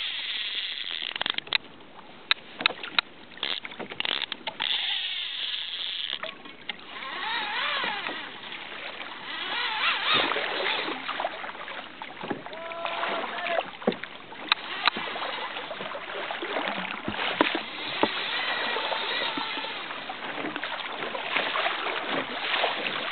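Sea water sloshing and splashing against a plastic fishing kayak's hull while a big fish tows it, with a quick run of sharp clicks a second or two in.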